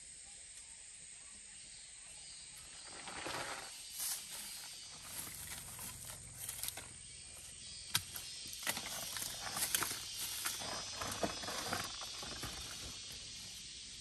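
Dry leaf litter and twigs rustling and crackling under bare feet, starting about three seconds in, with a few sharp snaps, over a steady high hiss of insects.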